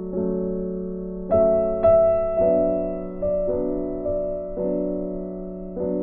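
Background music: a slow piano piece, held chords with single notes struck every second or so, each ringing and fading.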